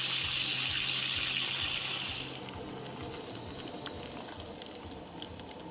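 Boat's outboard motor running with a steady low hum and a rush of water, running again after a new fuel line and primer bulb were fitted. The hum and rush fall away a little over two seconds in.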